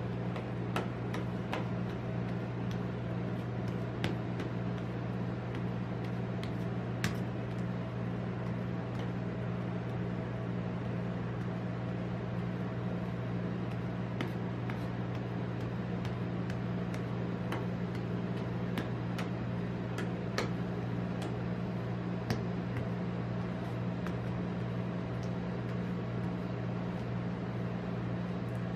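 Steady low hum of a rolled-ice-cream machine's refrigerated steel pan, with scattered light clicks and scrapes as metal spatulas spread and smooth ice cream on the cold plate.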